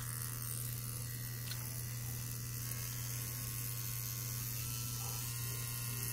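Wireless Xnet rotary tattoo pen running on its newly fitted Faulhaber 2607T07.5SR motor, a steady even buzz with no change in speed.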